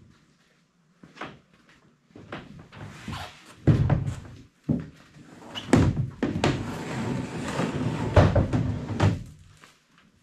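Plastic kayak hull being loaded onto a metal conduit rack on a trailer. It bumps against the rack in a few separate knocks, then scrapes and thumps for several seconds as it is slid into place, going quiet shortly before the end.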